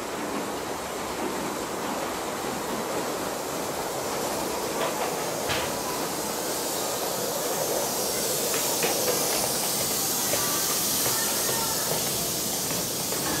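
Miniature Merchant Navy-class steam locomotive running through the station, its steam hiss getting louder as it draws near and passes, with a few sharp clicks from the wheels on the track.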